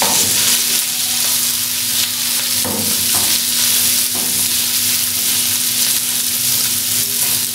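Beef mince sizzling as it fries in oil and ginger-garlic paste on a hot non-stick tawa, with a wooden spatula scraping and turning it a few times. A low steady hum runs underneath.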